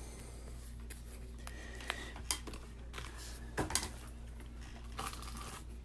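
Handling of a trading card and a magnetic one-touch card holder: a few soft clicks and taps over a steady low hum.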